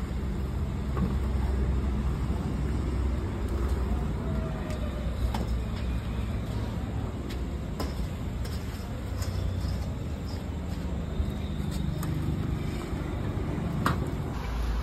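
Steady low background rumble, with a few sharp metallic clicks and clinks as a long-handled iron ladle scoops glowing charcoal and drops it onto the pot lids.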